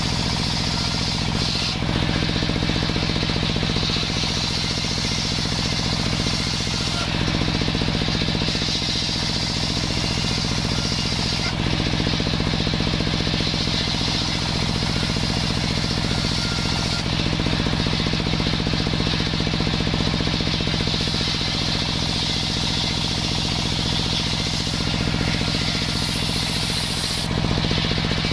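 Circular saw bench ripping sengon wood into battens: the spinning blade cutting along the boards over a steady low drone from the saw's drive. The high cutting hiss rises and falls every few seconds as boards are fed through and finished.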